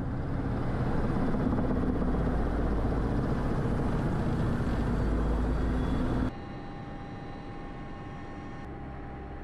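Military helicopter running, a loud steady engine and rotor noise that cuts off sharply about six seconds in to a quieter, steady whine.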